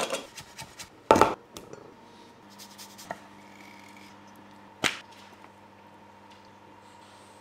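Kitchen prep sounds of utensils and food on a wooden chopping board. There is a sharp knock at the start and a louder clatter about a second in, then a few light clicks and a single knock near five seconds, over a faint steady hum.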